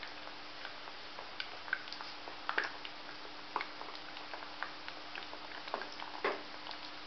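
Gulab jamun dough rolls frying in ghee in a kadhai: a steady sizzle with irregular crackles and pops, a few of them sharper than the rest.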